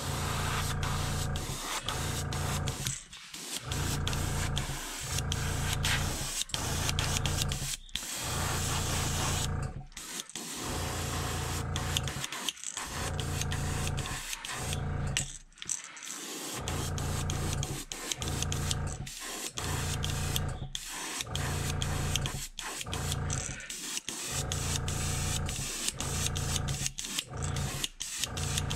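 Gravity-feed airbrush spraying pearl white paint onto a crankbait in short repeated bursts: a hiss of air with a low hum that starts and stops every second or two.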